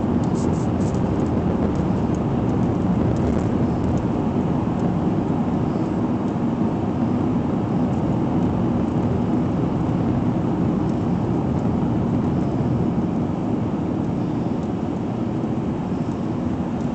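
Steady road and engine noise of a car at highway speed, heard from inside the cabin while driving through a road tunnel, a low rumble that eases slightly near the end as the car reaches the tunnel exit.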